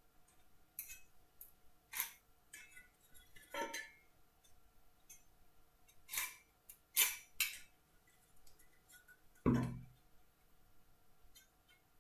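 Scattered light clicks and taps of hand tools and wood being handled and set down on a workbench during marking out, with one heavier knock about three-quarters of the way through.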